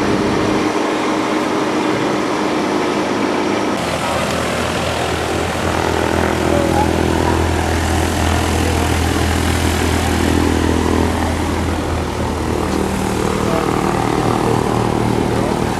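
Propeller aircraft's piston engine running steadily, with a sudden change in tone about four seconds in.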